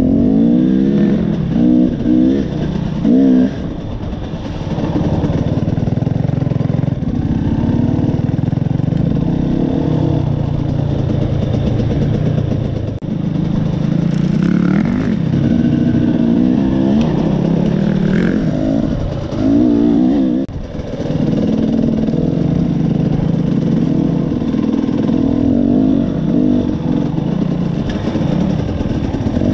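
KTM 300 XC two-stroke dirt bike engine running under the helmet-mounted camera, its pitch rising and falling again and again as the throttle is worked along the trail, with quick revs about two seconds in and again near the twenty-second mark.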